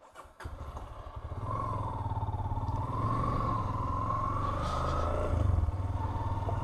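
Yamaha Lander 250 motorcycle's single-cylinder engine running as the bike pulls away and rides on, starting about half a second in and getting louder after a second or so. A wavering whine rises and falls above the engine sound.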